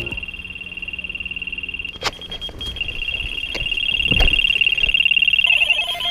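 Electronic carp bite alarm sounding one continuous, high-pitched tone: a screaming run, with a carp taking line. The tone breaks off about two seconds in, then comes back louder, and a lower beeping joins it near the end.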